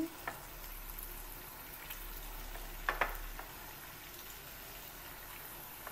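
Raw beef slices sizzling in hot oil in a wok, just added over fried shallots, garlic and green chillies, a steady hiss. One short sharp sound about halfway through.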